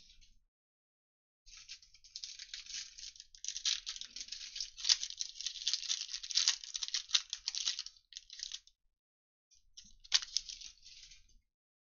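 Foil wrapper of a 2021 Illusions football card pack being torn open and crinkled by hand: a dense run of crackling from about a second and a half in to about eight seconds, then a shorter burst with a sharp snap about ten seconds in.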